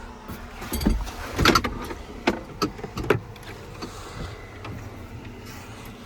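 Knocks and clicks of things being handled inside a tractor cab, about five in the first three seconds and then fainter, over the steady low running of the tractor.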